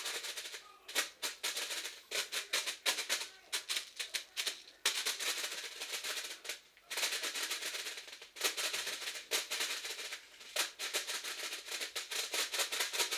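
Airsoft magazine being loaded with BBs: bursts of rapid plastic clicking and rattling, each a second or two long with short pauses between them.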